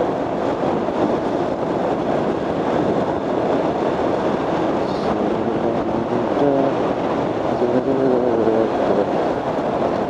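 Motorcycle on the move: steady engine and wind-and-road rush from the riding bike, with a wavering tone coming and going in the second half.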